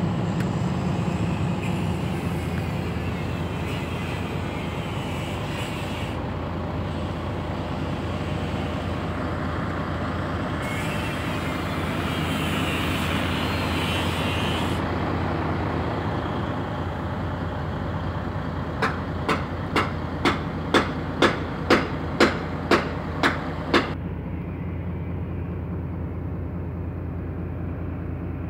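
Volvo FH16 550's 16-litre straight-six diesel idling steadily, heard from inside the cab. About two-thirds of the way in, a run of about a dozen sharp clicks comes at roughly two a second for some five seconds.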